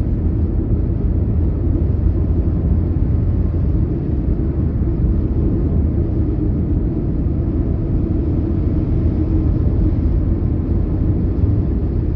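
Car driving at cruising speed on an expressway: steady engine and tyre rumble, mostly low-pitched and even throughout.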